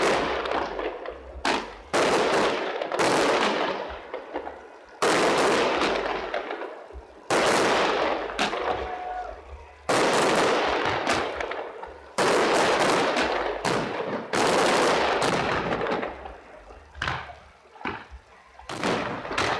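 Fireworks display: aerial shells bursting with sharp bangs about every two seconds, each bang followed by a long fading tail. The bursts are a little weaker and closer together near the end.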